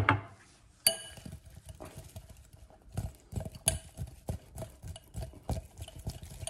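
Boiled new potatoes tumbling and knocking inside a glass bowl as it is shaken to coat them in butter, salt and parsley: an irregular patter of soft knocks, with a ringing glass clink about a second in.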